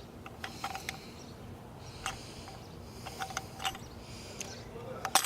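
Small clicks and taps of hard parts being handled and pressed together as a car thermostat, its spring and housing are fitted, with a louder cluster of clicks near the end.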